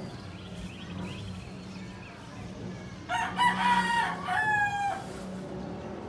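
A rooster crowing once, about three seconds in: a single crow of about two seconds in two parts, over a steady low hum.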